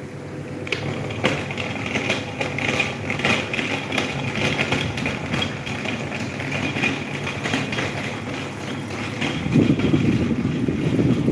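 Electric table fan running with a steady motor hum and frequent light clicks or rattles. From about nine and a half seconds in, a louder gusty rush comes in, like the fan's air blowing onto the microphone.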